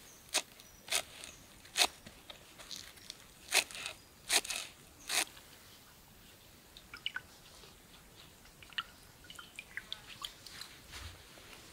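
Knife chopping fresh mint leaves on a wooden cutting board: about six separate cuts in the first five seconds, then only faint scattered ticks.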